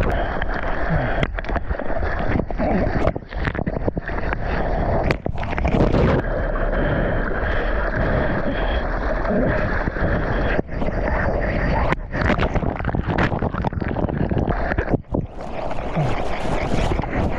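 Seawater washing and splashing over a GoPro camera held at the surface of the surf, with wind buffeting the microphone. The sound cuts out briefly several times.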